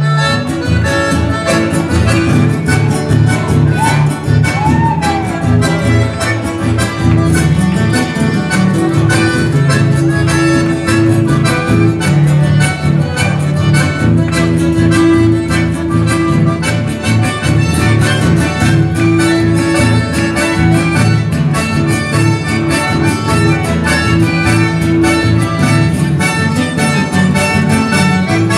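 Live chamamé music played on two button accordions and an acoustic guitar, with a steady, even rhythm throughout.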